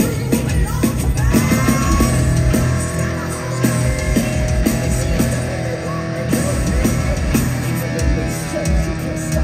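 Live heavy metal band playing loud: guitars and bass over a steady drum beat.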